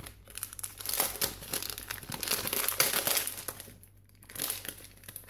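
Clear plastic bag crinkling as it is pulled open by hand, in two spells with a short break about four seconds in.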